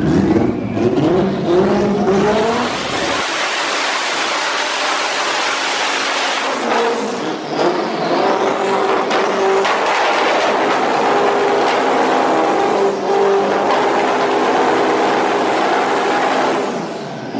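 A car engine revving hard, rising in pitch over the first couple of seconds, then held at high revs with a steady pitched whine over a loud rush of noise.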